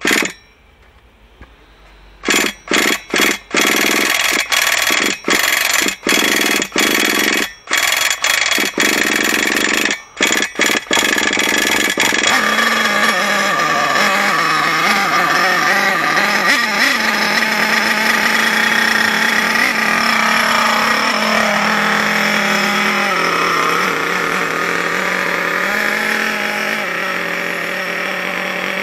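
Small nitro glow engine of a Hot Bodies Lightning GT radio-controlled car being started: a dozen or so short bursts of cranking and firing, then it catches about twelve seconds in and keeps running, its pitch wavering up and down.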